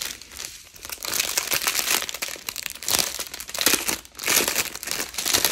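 Clear plastic wrapping around a bundle of diamond painting drill bags crinkling as it is handled, louder from about a second in.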